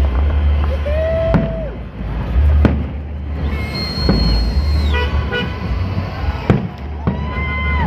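Aerial fireworks bursting with sharp bangs every second or two over a steady low rumble. Horns toot three long, flat notes at different pitches, one high and shrill, each ending with a drop in pitch.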